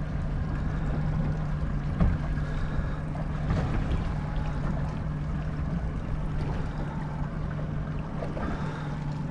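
A 150 hp outboard motor idling with a steady low hum, under a wash of wind and water noise.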